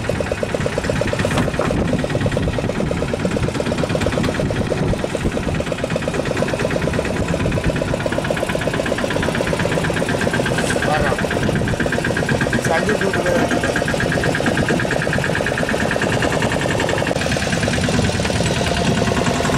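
Fishing boat's engine running steadily, with an even, rapid pulse.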